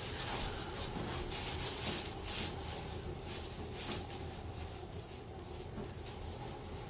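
Soft rustling and rubbing of clothing and body against a chiropractic treatment table as a patient is handled, over a low steady hum, with one sharp click about four seconds in.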